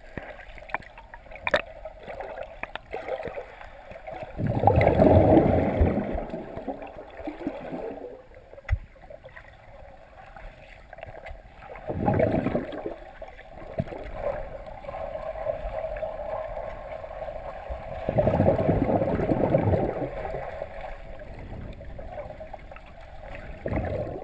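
Muffled underwater water noise heard through a submerged action-camera housing, with three louder surges of churning water about 5, 12 and 19 seconds in.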